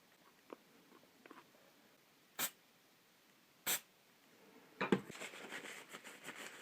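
Quiet handling of small parts while gluing: a few soft taps, then scratchy rustling with small clicks from about five seconds in.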